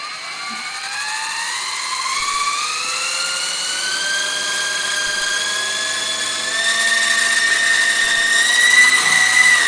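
Electric motor and rotors of a small remote-control helicopter spinning up: a whine that rises in pitch over the first few seconds, then holds steady and grows louder toward the end.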